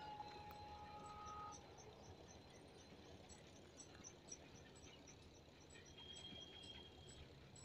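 Near silence: faint outdoor ambience by the railway tracks. Faint high chirps repeat about three times a second, and a faint steady tone is heard in the first second and a half.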